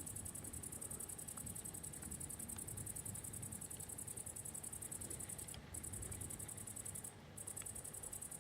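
Faint, steady high-pitched chirring of night insects, made of rapid fine pulses, that breaks off briefly twice in the second half, over a low, faint rumble.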